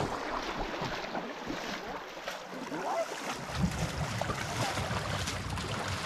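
Shallow river water rippling over a gravel bar, with wind on the microphone. About halfway through, a low steady jet-boat engine hum comes in.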